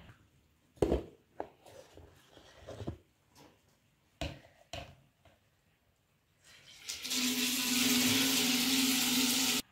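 A few light knocks, then a water tap running into a sink with a steady rush for about three seconds near the end, cut off sharply.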